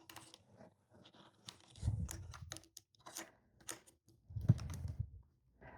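Parts of a OneTigris Dipper camping table being handled and fitted together: scattered light clicks and rustling, with two short stretches of duller handling noise about two and four and a half seconds in.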